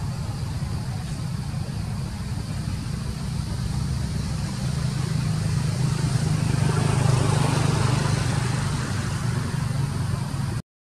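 Low, steady engine hum of a motor vehicle, swelling louder for a few seconds midway and cutting out briefly near the end.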